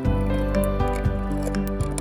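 Background music with a steady beat and sustained synth tones.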